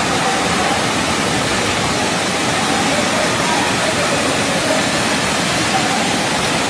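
Floodwater rushing down a street in a loud, steady torrent, pouring over parked motorbikes.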